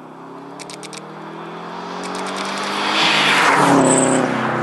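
2006 Subaru WRX with a turbocharged flat-four engine driving toward the camera and passing close by. The engine grows steadily louder to a rush of passing noise about three and a half seconds in, and the pitch falls as the car goes past.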